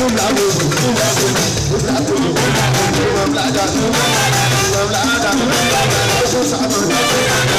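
Live fuji band music: a lead singer sings into a microphone over drums, bass guitar and rattling percussion.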